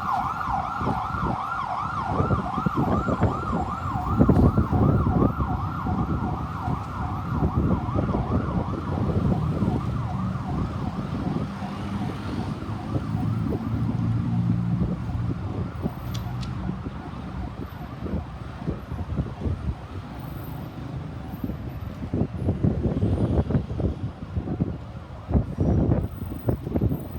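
Ambulance siren yelping, its pitch sweeping up and down about three times a second and fading away over the first dozen seconds as the vehicle moves off. A steady low rumble of road traffic runs underneath and carries on after the siren is gone.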